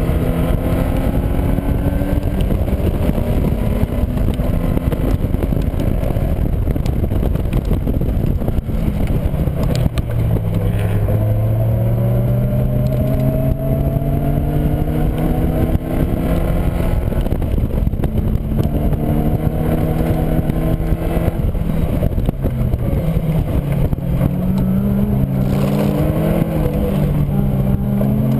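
Caterham Seven's 1.6-litre four-cylinder engine at full track speed, its revs climbing and falling again and again through the gears and corners, dropping low for a couple of seconds about a third of the way in. Heavy wind rush from the open cockpit runs under the engine throughout.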